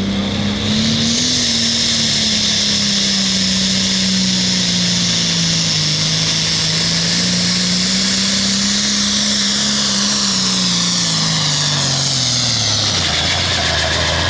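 John Deere 4455 pulling tractor's diesel engine running hard at full throttle under load during a pull, with a high whine over the engine note. The pitch holds steady for most of the pull, then sags over the last few seconds as the load drags the engine down.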